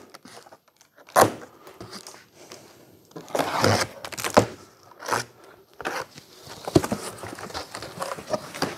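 A cardboard shipping carton being unpacked: its plastic packing bands cut and pulled free with a sharp snap about a second in, then the taped top flaps torn and pushed open with cardboard scraping and knocks.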